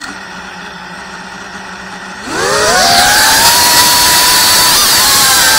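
FPV quadcopter's brushless motors and propellers idling low for about two seconds, then a rising whine as the throttle comes up for takeoff, settling into a loud, steady high-pitched whine with brief dips in pitch near the end.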